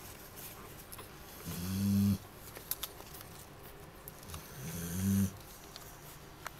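A puppy snoring in its sleep: two slow, rasping snores about three seconds apart, each swelling louder before it stops.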